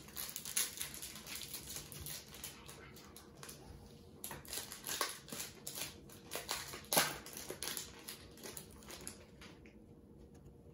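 Baseball cards and their foil pack wrappers being handled: short, irregular crinkles, rustles and clicks of wrapper and card stock, the loudest about seven seconds in, thinning out near the end.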